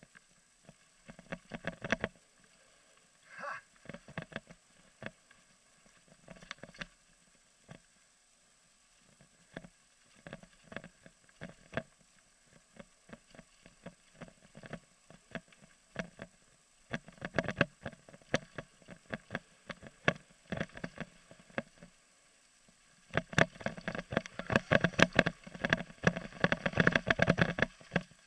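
Mountain bike clattering and rattling over a rough, rocky downhill trail, heard through a helmet-mounted camera: irregular knocks and clicks in clusters, with a short squeal about three seconds in and dense, loud rattling over the last five seconds.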